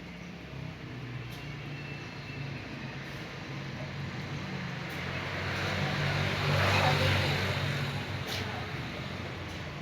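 A motor vehicle engine going past, growing louder to a peak about seven seconds in and then fading.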